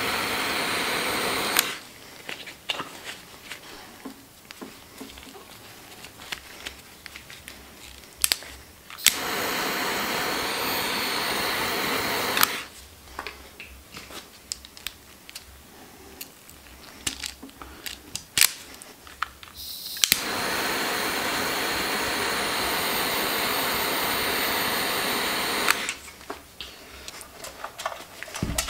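Heat gun blowing in three steady bursts of a few seconds each, shrinking heat-shrink tubing over wires. Small clicks and handling noises come between the bursts.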